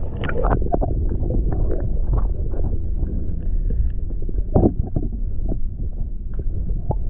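Muffled underwater rumble with scattered knocks and clicks as tools and hands work on an outboard motor's bracket, one knock a little louder about halfway through.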